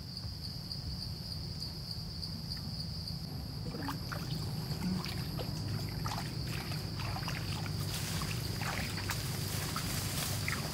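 Water sloshing and splashing, with scattered small splashes and clicks from about four seconds in, over a steady high-pitched drone.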